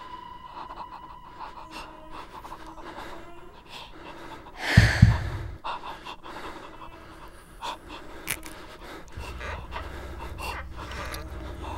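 A person breathing heavily and panting, with one loud breath about five seconds in. A low steady hum comes in about nine seconds in.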